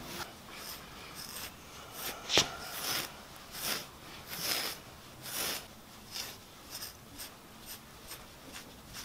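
Grooming brush raking through a Siberian husky's thick shedding coat: a rasping stroke repeated about once or twice a second, louder in the first half. One sharp click about two and a half seconds in is the loudest sound.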